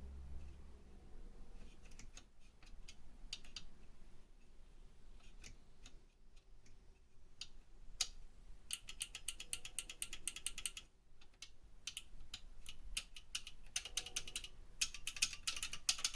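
Key switches of an HP 15254A keyboard clicking under test: scattered single clicks at first, then quick runs of many clicks from about halfway through, loudest near the end.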